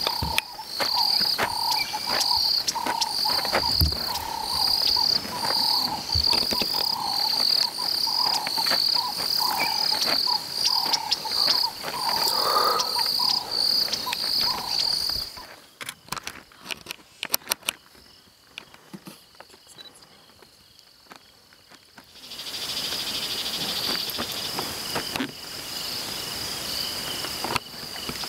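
Insects calling in an even, rhythmic pulsing chirp, with a high note and a lower one pulsing together. About halfway through it cuts off to a quieter stretch with a few clicks, then a steady high insect trill comes in.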